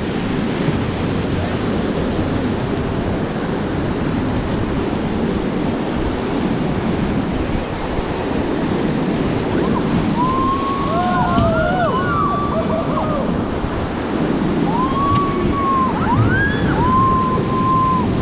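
Rushing whitewater of the River Beas, a loud steady rush of water noise. About ten seconds in, and again near the end, come a few short high calls that rise and fall.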